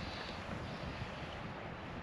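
Wind on the microphone: a steady hiss with uneven low buffeting.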